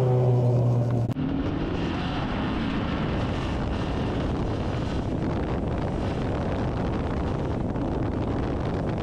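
Renault Clio F2000 rally car on gravel, its engine held at steady revs as it slides past. About a second in the sound cuts to the onboard bonnet camera, where a steady rush of wind on the microphone covers the car's running noise.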